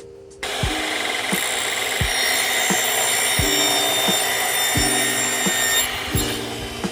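A power saw spinning up about half a second in and cutting through wooden crown molding with a steady high whine, winding down near the end.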